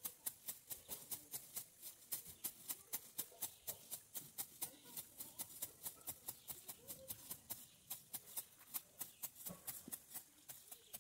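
Hand grass shears snipping grass: an even run of sharp clicks, about four or five a second.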